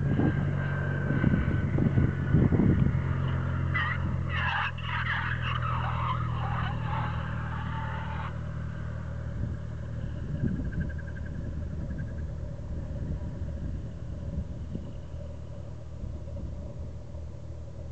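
Cessna 172's piston engine and propeller making a low, steady drone as the plane lands and rolls out, slowly fading as it moves away down the runway. About four seconds in there are a few seconds of irregular scratchy noise.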